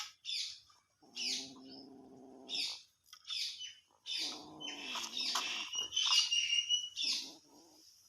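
Squirrel's high, sharp chirps repeating about every half second, the alarm calls of a squirrel threatened by a cat. Twice a lower, drawn-out wavering animal cry joins in, and near the end there are shrill squeals.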